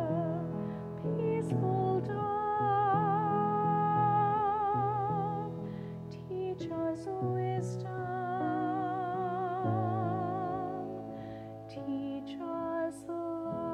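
A soprano sings long held notes with a wide vibrato over piano accompaniment, with short breaks between phrases.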